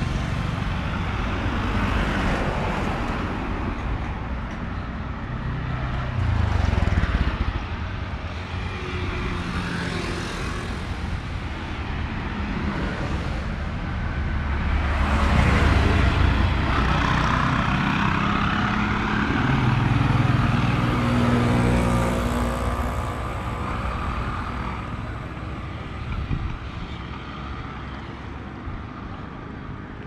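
Road traffic passing close by, cars and three-wheeler auto rickshaws, the engine and tyre noise swelling and fading as several vehicles go past, loudest about halfway through.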